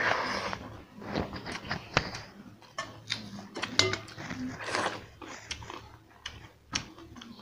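Close-up eating by hand: a wet slurp as a handful of pakhala (rice soaked in water) goes into the mouth at the start, then chewing with many wet smacks and clicks and a second noisy bite about two-thirds through.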